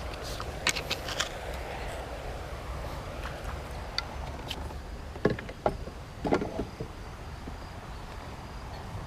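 Kayak and paddle knocking and clattering against creek rocks: a few sharp clicks about a second in, then louder knocks between about five and six and a half seconds, over a steady low rush.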